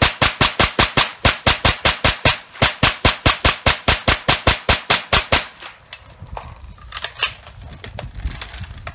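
GSG 522 .22 LR semi-automatic rifle fired rapidly, about six shots a second in an even rhythm, stopping about five and a half seconds in. A few faint clicks follow.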